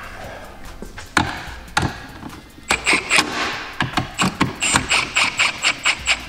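Cordless power driver running in quick repeated pulses, tightening a tow mirror's mounting fasteners, after a few handling knocks. The pulses start about halfway in and come about five a second near the end.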